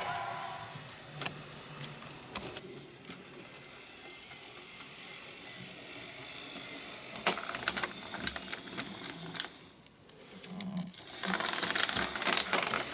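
OO gauge model tank locomotive running on track, its small motor and gears whirring, with sharp clicks as the wheels cross rail joints and points. A dense run of clicking and clattering comes near the end as it passes over a set of points, where the loco tends to come off the rails.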